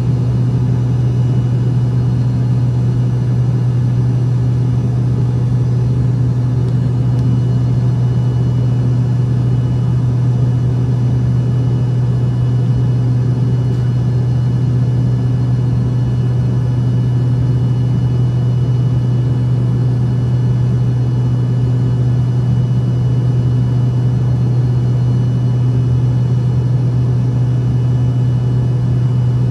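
Steady jet airliner drone with a strong low hum and several fixed higher tones, holding an even level with no rise or fall.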